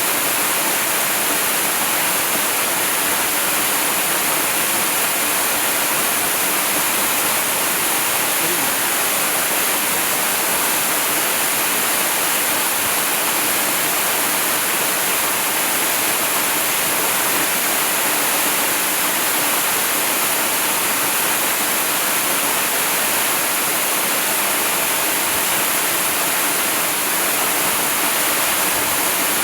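Waterfall: a steady, unbroken rush of falling water with a bright hiss, holding an even level throughout.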